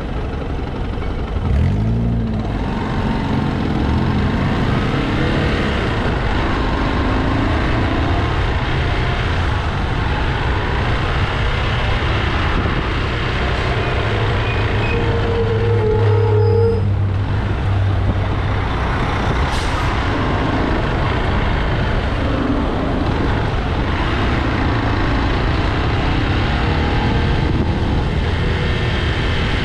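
Road traffic heard from a moving vehicle: a steady engine drone with road noise, the engine pitch rising briefly about two seconds in as it speeds up. A short steady tone sounds for about two seconds around the middle.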